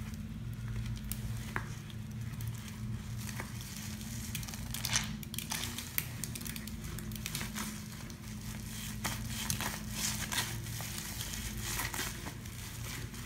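A sponge soaked in foamy Comet cleanser lather being squeezed and scrubbed with rubber-gloved hands, giving an irregular wet crackling and squishing of the foam. A steady low hum runs underneath.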